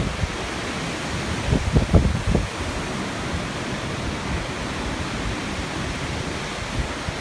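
Strong gusty wind blowing as a steady hiss, with a few low buffets of wind on the microphone about two seconds in.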